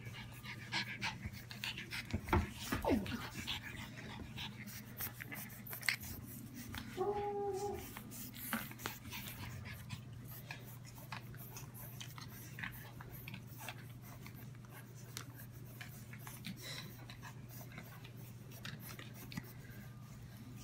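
French bulldog puppies playing on a hard floor: scuffling and clicking, with a short falling cry about two and a half seconds in and a brief steady cry about seven seconds in. A low steady hum runs underneath.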